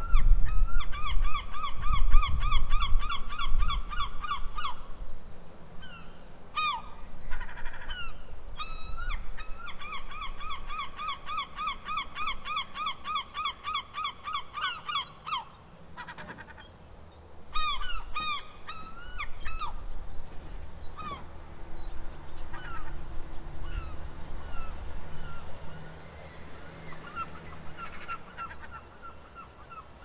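Seagulls calling: two long runs of rapid repeated squawking notes, about five a second, the first in the opening seconds and the second from about 9 to 15 seconds in, then scattered single calls. A low rumble runs underneath.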